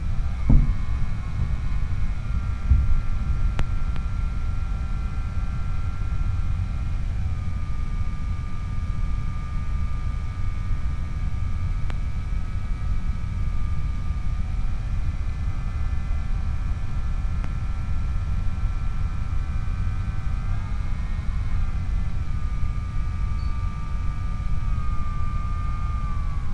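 Electric motor and propeller of a Skyhunter FPV plane whining steadily in flight, heard from the plane's own microphone. The pitch steps up and down a few times as the throttle changes. Heavy wind rumble from the airflow lies underneath.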